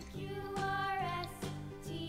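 Background music with a steady beat and a simple held melody.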